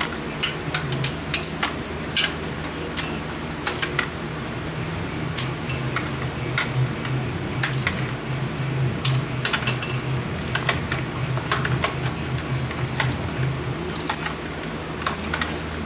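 Irregular metallic clicks and clinks of hand tools and bolts being worked on an intake manifold, over a steady low hum.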